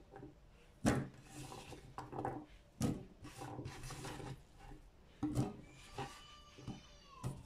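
Diced raw potato being scraped off a wooden cutting board by hand and dropped into a stainless steel pot. The cubes land in about four louder knocks, with the rubbing of hands and potato on the wood between them.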